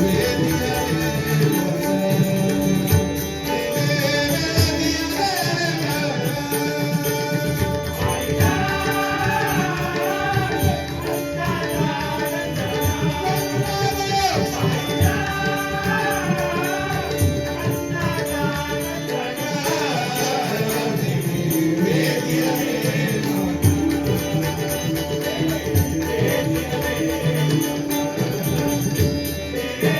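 A Konkani devotional bhajan: a singer's melodic vocal line over sustained drone tones and steady drum strokes, with the singing most prominent through the middle of the passage.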